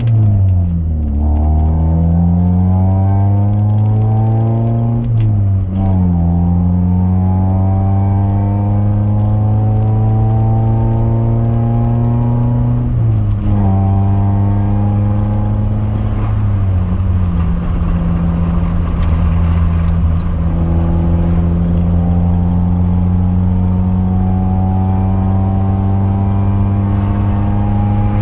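Honda F23A four-cylinder engine pulling a car up through the gears: the pitch climbs slowly, drops sharply at each upshift, four times, then holds steady at cruise for the last ten seconds or so.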